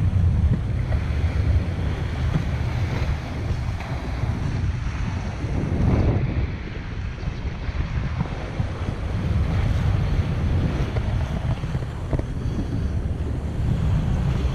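Wind buffeting the camera microphone on a moving bicycle: a low rumble that rises and falls, with a fainter hiss above it.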